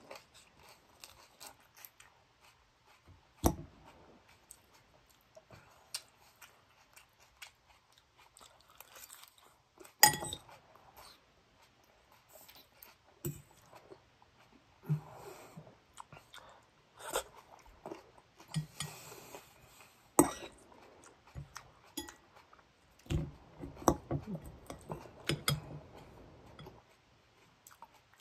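A person chewing and crunching salad, with irregular crisp crunches and bites; the sharpest come about ten and twenty seconds in.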